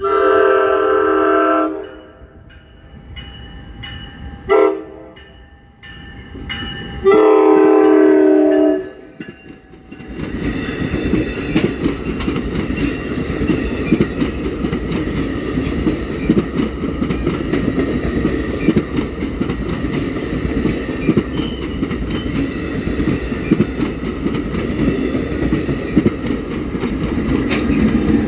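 Train horn sounding a long blast, a short blast and another long blast, the pattern of a horn signal for a grade crossing. Then the train passes close by, a loud steady rumble with wheels clattering over the rail joints.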